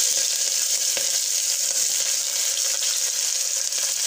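Sliced onions, freshly added, sizzling steadily in hot oil in an open pressure cooker.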